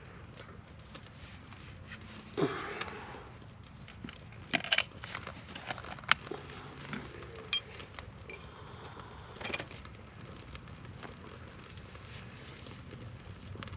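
Scattered sharp snaps and clicks with rustling, from small twigs and birch bark being handled and broken while building a campfire; the loudest snaps come about two and a half, five and six seconds in.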